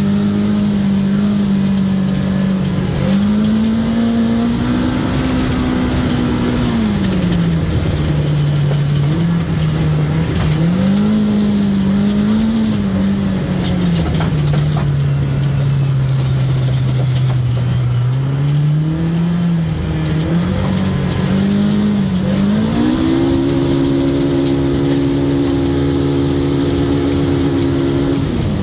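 Polaris RZR side-by-side's engine running as it drives a sandy trail, its pitch rising and falling with the throttle. It climbs to a higher steady note about 23 seconds in and drops back near the end.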